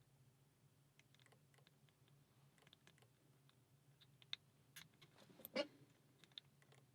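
Faint, scattered clicks and light scratching of a lock pick and tension tool working the pins of a Schlage pin-tumbler lock, with a few sharper clicks and a louder cluster of clicks about five and a half seconds in.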